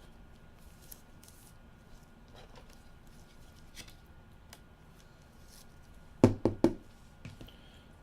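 Faint handling of trading cards and their packaging, small clicks and rustles, then three sharp knocks in quick succession about six seconds in, followed by a softer one.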